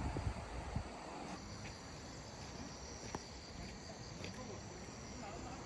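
Insects trilling, a steady high-pitched sound that sets in about a second in and turns to a faint pulsing near the end, over low background rumble with a few soft knocks at the start.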